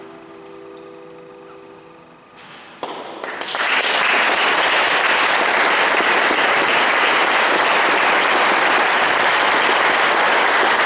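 The last held note of a violin and piano duo fades away, then an audience breaks into applause about three seconds in and keeps clapping steadily.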